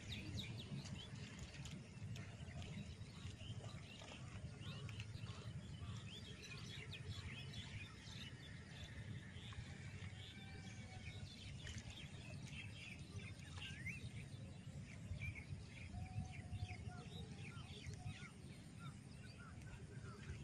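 Many birds chirping and calling in a dense, continuous chorus, over a steady low rumble.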